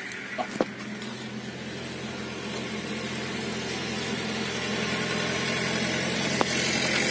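Steady low machine hum, like an engine running at idle, growing slowly louder, with a few faint clicks near the start and again near the end.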